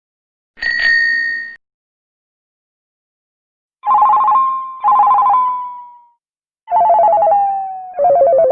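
Sound effect: a short, bright electronic beep, then four warbling electronic phone-style rings in two pairs. Each ring is lower in pitch than the last, and the final one slides down as it fades.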